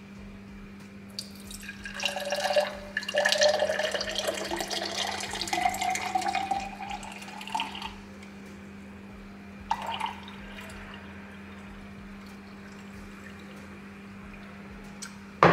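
Infused water poured from a glass pitcher into a tall drinking glass, with a pouring tone that rises steadily as the glass fills, for about six seconds. A short light knock follows a couple of seconds after the pour ends.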